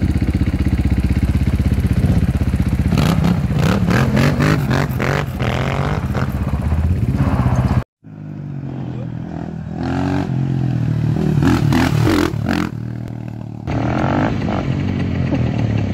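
Motorcycle engines revving and accelerating, the pitch rising and falling with each rev and gear change. The sound breaks off abruptly twice as one clip cuts to the next; the first part is the loudest.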